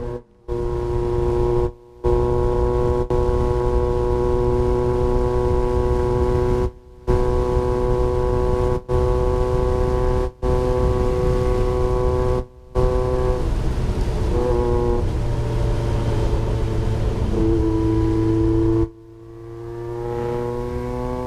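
1994 Yamaha XJR1200's air-cooled inline-four running loud through its exhaust at a steady cruising speed, a constant droning note broken by several brief cut-outs. Later the note wavers, falls away about nineteen seconds in, then rises again as the engine is revved back up.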